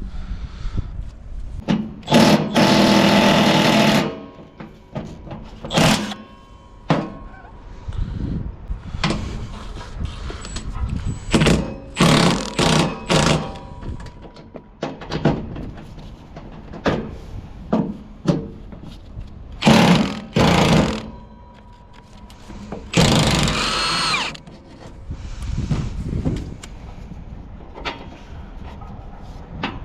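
Mechanic's tool work on a loader engine: scattered clanks and knocks, with two bursts of a power tool running, about two seconds in and again about 23 seconds in, the second with a rising whine.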